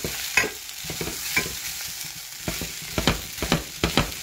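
Wooden spatula scraping and knocking against a frying pan in irregular strokes as shrimp and vegetable fried rice is stirred, with the rice sizzling underneath.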